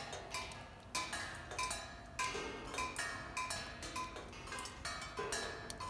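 Rain falling on small bronze cymbals laid on the ground: irregular metallic pings, several a second, each ringing briefly at a few different pitches as drops strike different cymbals.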